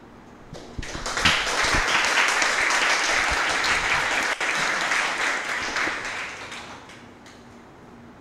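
A roomful of people applauding: the clapping starts about a second in, holds steady, then fades out about a second before the end.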